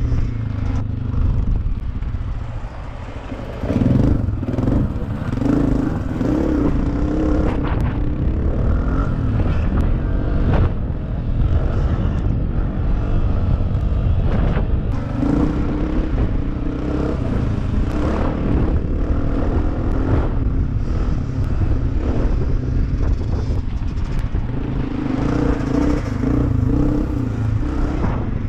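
Dirt bike engine running under the rider, heard from on the bike as it rides a rough trail. The engine note rises and falls with the throttle, easing off briefly about three seconds in before picking up again. Knocks and rattles come from the bike going over bumps.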